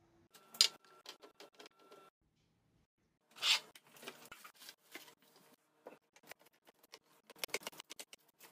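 Containers and food items being handled and set down while a fridge is restocked: a run of clicks, taps and light clatter. There is a sharp knock just after the start and a louder scrape or rustle about three and a half seconds in.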